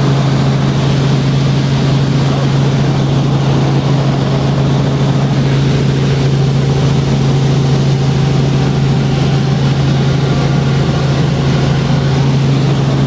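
Helicopter engine and rotor drone heard inside the cabin: a loud, steady hum with a constant low tone over a rushing noise, unchanging throughout.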